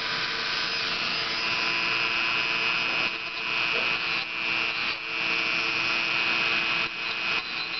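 Dremel rotary tool with a small sanding drum running at a steady whine, grinding down a peregrine falcon's beak to trim and reshape it (coping). The drum's rasp against the beak breaks off briefly a few times as the tool is lifted and put back.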